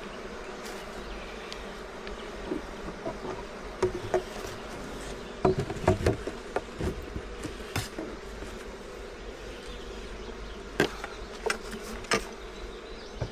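Honeybees buzzing steadily around an opened hive, with scattered sharp knocks and clicks from the hive's frames and boxes being handled.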